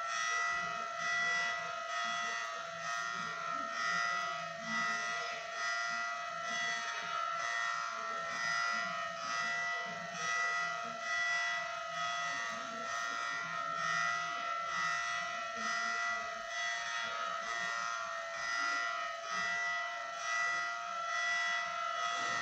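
Federal Signal Thunderbolt 1003 outdoor warning siren sounding its hi-lo test signal, a chord of steady siren tones that swells and fades regularly about every second and a quarter.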